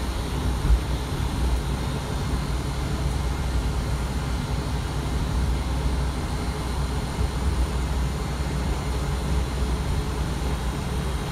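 Steady low rumble of a city bus's engine and road noise heard inside the cabin while the bus drives, with one brief low bump under a second in.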